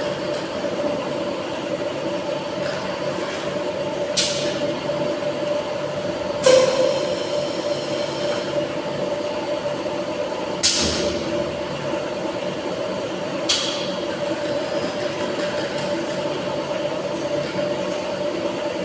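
Tilting-type air jet bottle washing machine running with a steady mechanical hum and a constant mid-pitched tone. Four short hissing bursts break through at irregular intervals.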